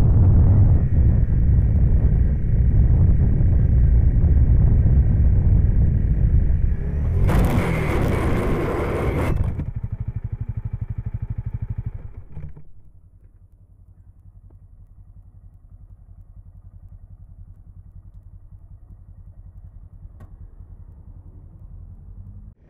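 Honda CRF250L single-cylinder engine and road noise at low speed. About seven seconds in, a harsh scrape of about two seconds comes as the bike lowsides and slides on the asphalt. The engine runs on more quietly for a few seconds and cuts out, leaving only a faint low rumble.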